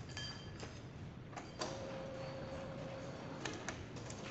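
Scattered metal clicks and knocks from a metal lathe's tool post and carriage being moved by hand. About one and a half seconds in, one sharp metal clank rings on as a single steady tone for nearly two seconds.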